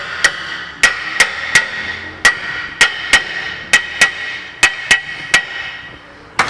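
Rear brake rotor on a Ford Expedition's hub being knocked on, about a dozen sharp metal hits at an uneven pace of roughly two a second, the rotor ringing after each. It is being worked back on over parking-brake shoes that had come unseated.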